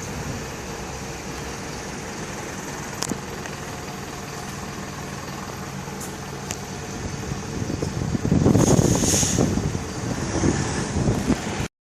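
Road vehicle engine running steadily, with a low hum and traffic-like noise that swells louder for a few seconds near the end, then cuts off abruptly.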